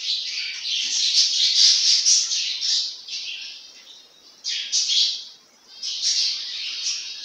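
Hot cooking oil sizzling in a frying pan as rice-flour murukku dough is pressed into it. The sizzle fades twice briefly in the middle. It goes on while the murukku is still frying and stops once it is cooked through.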